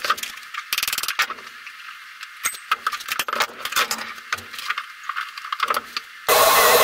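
Metal clinks and rattles of wrenches and loose parts as a motorcycle front wheel is unbolted and lifted out of its fork. Near the end a grinder cuts in suddenly and runs against the steel fork tubes, its pitch wavering under load.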